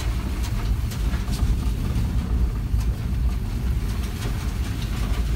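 Motor vehicle running, a steady low engine and road rumble with a few faint scattered ticks.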